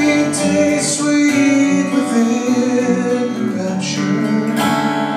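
A man singing into a microphone while accompanying himself on an acoustic guitar, his voice holding long notes over the guitar.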